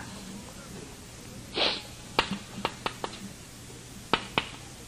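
A short sniff or breath about one and a half seconds in, followed by a handful of small sharp clicks spread over the next two seconds, in a quiet pause in a man's talk.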